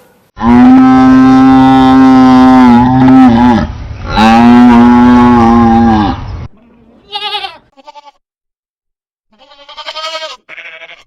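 Cow mooing: two long, loud moos, then a few shorter, fainter calls.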